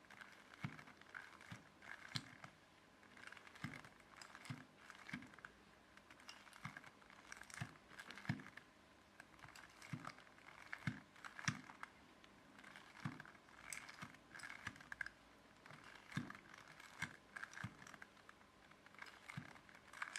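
Plastic Rubik's Cube layers being turned again and again by hand: a quiet, irregular string of clicks and clacks, about two a second.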